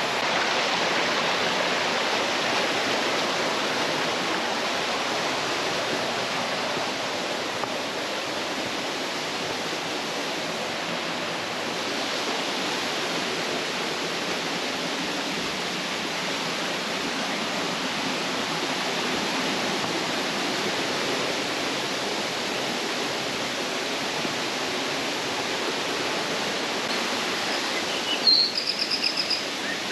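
Steady rush of flowing water from a stream or waterfall. A bird chirps a few times near the end.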